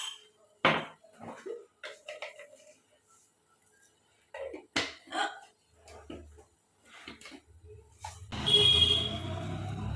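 A person hiccuping: several short, sharp hiccups spaced a second or more apart. Near the end comes a longer, louder noisy sound.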